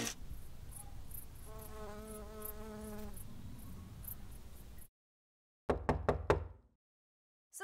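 A faint buzz with a slightly wavering pitch, then after a brief silence a quick run of about five sharp knocks within a second.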